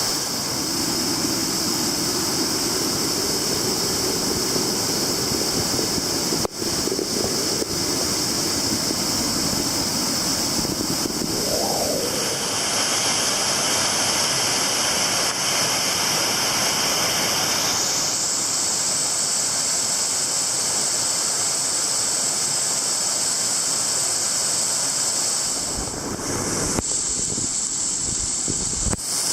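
Waterfall rushing with a steady hiss of falling water.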